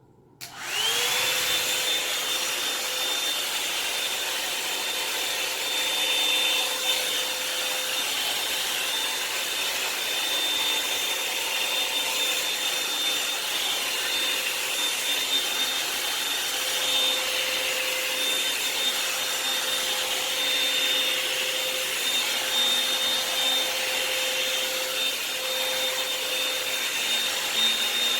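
Revlon hot-air dryer brush switched on about half a second in. Its motor spins up with a short rising whine, then runs steadily with a high whine and a rush of air.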